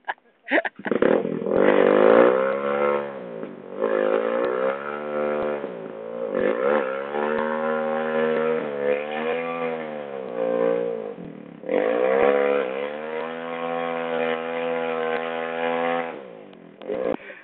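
Trail motorcycle engine revving up and down repeatedly, with a short break about two-thirds of the way through, then dropping away near the end.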